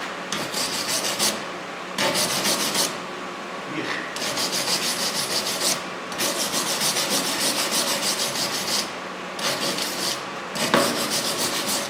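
TIG welding arc buzzing in a series of short stop-start bursts, on old mild steel laid over earlier brazing that the weld does not take to well.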